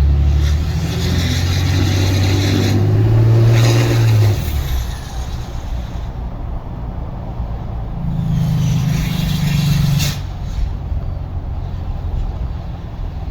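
A 6.7-litre Cummins inline-six turbodiesel running through a 4-inch exhaust. It pulls hard with a low exhaust note that rises in pitch for about four seconds, then drops off. About eight seconds in a second steady, louder surge with turbo hiss comes in and cuts off suddenly about two seconds later.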